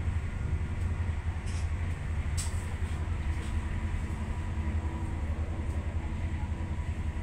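Steady low rumble of a Stadler FLIRT ER160 electric multiple unit running, with a faint steady hum and a few faint clicks.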